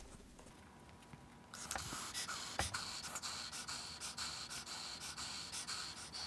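Hands pressing and rubbing a foam puppet head against its glued mouth plate, a scratchy rustling of many quick small rubs that starts about a second and a half in.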